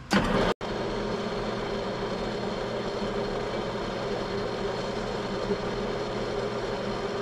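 Small engine lathe running steadily, its motor and drive giving an even hum as it spins a stack of small-block Ford cam bearings while a tool cuts a shallow oil groove into their backs.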